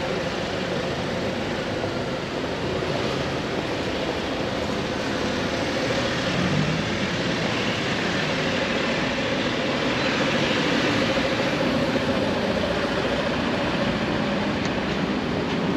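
Street traffic: cars and a van moving slowly or waiting in a narrow street, giving a steady engine hum.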